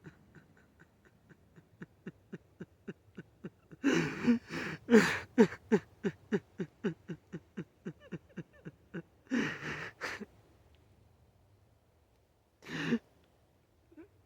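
A person sobbing: a long run of short, shaky, falling cries, about four a second, broken by louder gasping breaths about four and five seconds in and again near ten seconds. One more sharp breath comes near the end.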